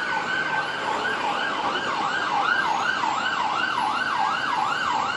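Emergency vehicle siren: a slow rising wail holds at its top note, then about a second in switches to a fast yelp sweeping up and down about three times a second.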